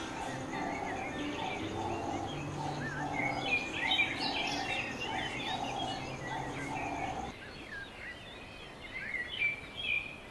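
Several wild birds chirping and singing, with a lower pulsing call repeating about twice a second that stops about seven seconds in.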